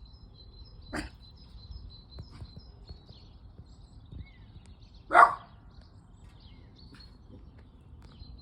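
A dog barks twice: a short, sharp bark about a second in and a louder single bark about five seconds in. Small birds chirp faintly throughout.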